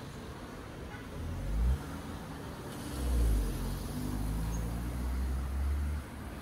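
Road vehicle engine running close by in street traffic: a low rumble that swells briefly about a second in, then more strongly for about three seconds from the middle, and drops away suddenly each time.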